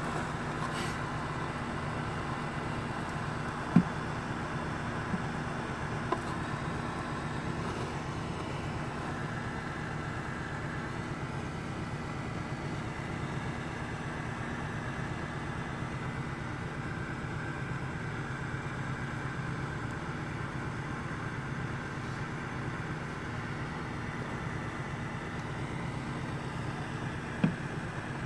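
Steady drone of a portable plug-in car heater fan blowing at the windshield, over the car's engine running at idle. Two brief knocks, about four seconds in and near the end.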